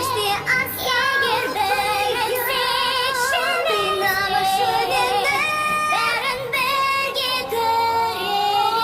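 Two women singing a dramatic duet in Kazakh over orchestral accompaniment, their lines overlapping, with wide vibrato on the held notes.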